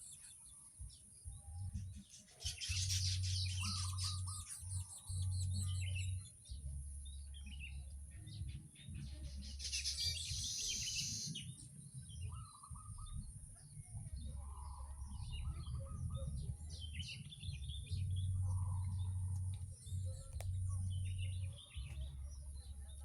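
A flock of weaver birds chirping and chattering continuously around their nests, many short calls overlapping. A steady high hiss runs underneath, and a loud low rumble comes and goes in blocks of a few seconds.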